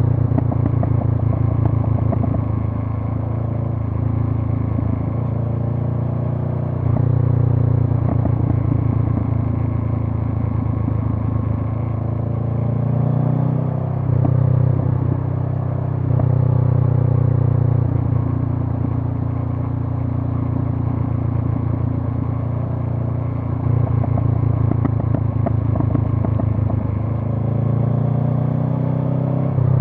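Honda CB500F's 471 cc parallel-twin engine running through a Mivv GP Pro slip-on exhaust while riding. Its note swells and eases every few seconds as the throttle is opened and rolled off, with brief pitch glides between gears.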